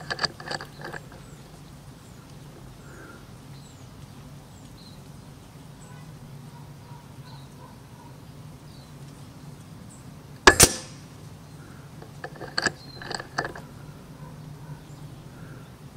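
A home-built .25 calibre electric PCP air rifle, regulated and fitted with a shrouded silencer, fires a single sharp shot about ten and a half seconds in. Short bursts of mechanical clicks come near the start and again a couple of seconds after the shot as the side lever is worked to load the next pellet from the rotary magazine.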